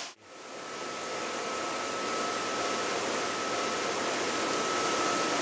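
Steady machinery noise of CNC machines running on a machine shop floor, with a constant high whine. It fades in just after the start and then holds even.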